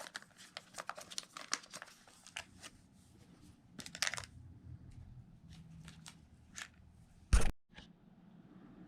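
Scattered small clicks and rustling handling noises, with one loud thump about seven and a half seconds in, then quiet room tone.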